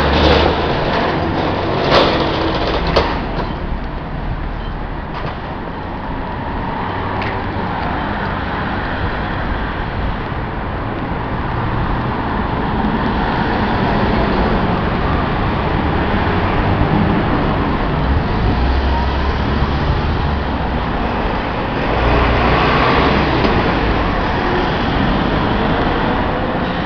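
Street traffic noise on a busy city road: a steady wash of passing cars and trucks, with two sharp clicks about two and three seconds in and a brief rise as a vehicle passes near the end.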